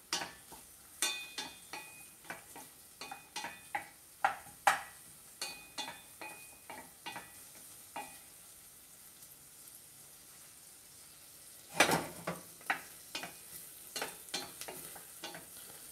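Wooden spoon scraping and tapping against a stainless steel saucepan while stirring diced onion and garlic sautéing in butter and oil, with a faint sizzle underneath. Some taps leave the pan ringing briefly. The stirring pauses for a few seconds after about eight seconds, then resumes with a louder scrape at about twelve seconds.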